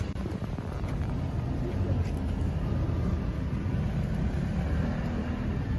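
Outdoor street ambience: a steady low rumble with faint chatter from the watching crowd.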